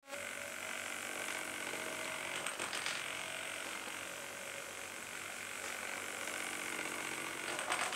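Small cheap DC motor spinning an off-centre mass, running steadily and shaking the drawing robot so that its felt-tip pen legs chatter over the paper.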